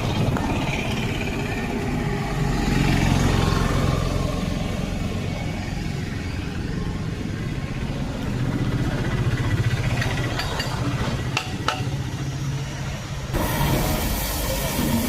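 Steady low mechanical hum of a running engine or motor, with a few sharp clicks about ten to twelve seconds in.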